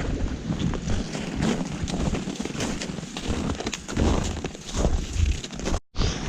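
Wind rumbling on the microphone, with scattered crunching clicks over it; the sound cuts out for an instant near the end.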